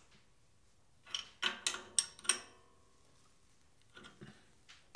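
Metal clicks and clinks of a hand tool on the lathe's tailstock locking clamp as it is tightened back up: several sharp clicks with a short ring a little after a second in, then a few faint ticks near the end.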